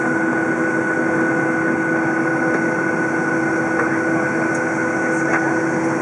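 Steady cabin noise of a Boeing 737 taxiing, its jet engines at idle giving a constant hum and whine over an airy hiss, with a few faint clicks.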